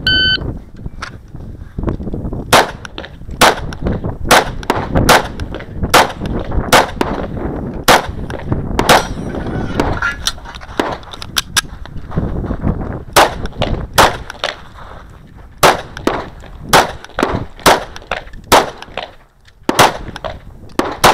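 Shot timer beeps once, then a Kahr CW9 9mm pistol fires a couple of dozen shots in quick pairs and strings, broken by short pauses. Steel targets ring when hit, most plainly about nine seconds in.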